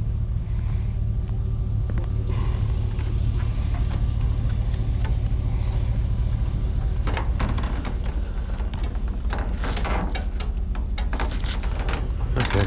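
Steady low rumble of a vehicle driving, heard from inside, with a run of knocks and rattles over it in the second half.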